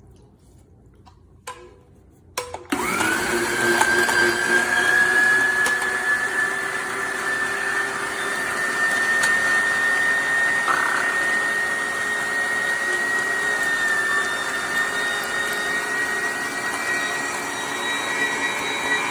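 Electric meat grinder switched on after two clicks, about three seconds in: the motor spins up fast to a high whine, then runs steadily, its pitch creeping slightly higher.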